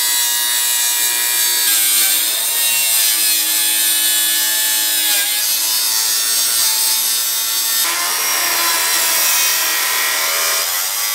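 Makita angle grinder grinding along the edge of a sheet-metal door panel, trimming it down. A steady high whine over a hiss of grinding, the whine wavering slightly.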